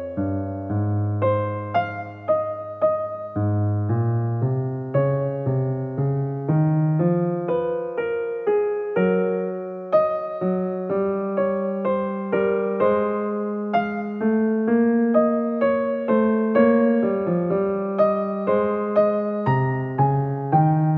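Calm background piano music: a slow melody of single notes, each fading after it is struck, over held lower notes.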